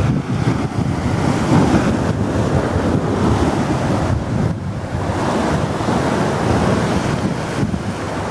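Sea waves breaking and washing over granite shore rocks, a steady surging roar of surf, with wind buffeting the microphone.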